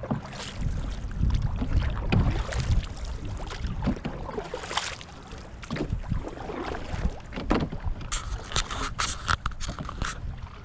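Canoe being paddled on a lake: paddle strokes splashing in the water and knocking on the hull, with a low rumble on the camera microphone and a flurry of sharper splashes near the end.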